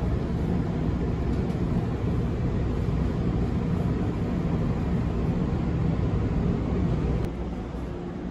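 Steady low rumble of harbour ambience beside docked ferries. About seven seconds in it drops to a quieter hum after a click.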